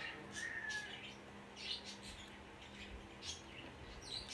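Close-up eating sounds: chewing and lip smacks while eating cake, heard as irregular short wet clicks, over a steady low hum. A brief high chirp sounds about half a second in.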